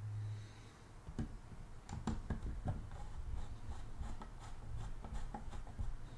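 Faint scattered clicks and rubbing from hands handling a small PiBox case and twisting a Wi-Fi antenna onto its screw connector.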